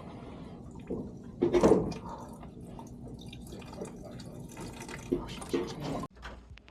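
Water dripping and splashing over a steady low hum, with a louder splash about one and a half seconds in and a few knocks; the sound cuts off abruptly near the end.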